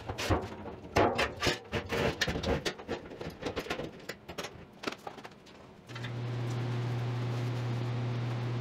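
Workshop handling sounds: a run of irregular knocks and clacks, the loudest about a second in. Then, near six seconds in, a shop machine starts and runs with a steady low hum.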